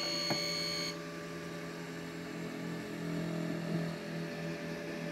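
An incubator's controller beeps for about a second. Then the egg-turning motor hums as it tilts the egg tray during a manual turn, over the incubator's steady electrical hum.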